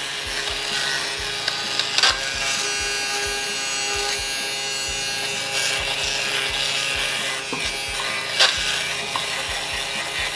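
Nova electric lint remover (fabric shaver) running with a steady motor whir while it is pushed over a coat, its blades shaving off the pills. Two sharp knocks stand out, about two seconds in and near the end.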